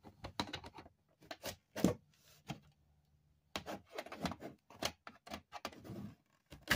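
Irregular clicks and light knocks of a hand screwdriver turning out screws in a flat-screen TV's plastic back cover, with a pause of about a second in the middle.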